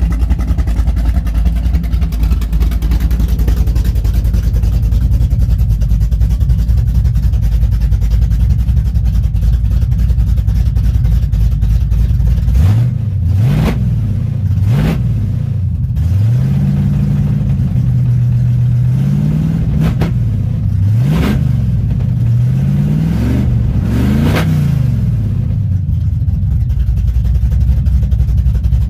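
Chevrolet Camaro's engine idling with a steady low drone. About twelve seconds in, it is blipped through a series of quick revs that rise and fall, one held higher for a moment, before it settles back to idle near the end.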